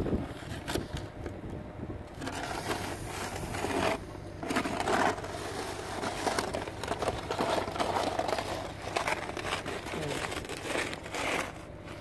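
Snow shovel pushed through snow on a driveway. It scrapes and crunches in uneven strokes.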